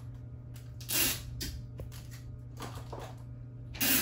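Two short tearing sounds, about a second in and again near the end: strips of tape pulled and torn off a desktop tape dispenser. A steady low hum runs underneath.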